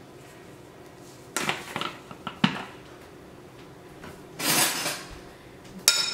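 Kitchen handling sounds: a few clicks and knocks of utensils and containers, a brief rustle just before five seconds in, and a sharp clink of a metal spoon against the glass mixing bowl near the end as mixing of the seasoned raw chicken begins.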